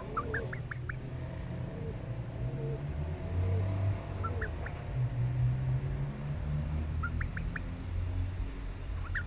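A domestic hen making soft, low, repeated calls about twice a second, fading out about halfway through. Short high chirps come in small clusters a few times, over a steady low hum.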